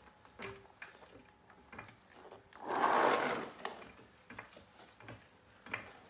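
Car jack being worked to lift the car: repeated small mechanical clicks about two a second, with a louder rushing noise lasting under a second about three seconds in.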